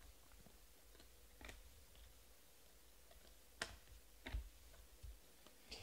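Faint clicks and taps of Panini Prizm trading cards being thumbed through and set down on piles: a handful of separate ticks over near silence, the sharpest about three and a half seconds in.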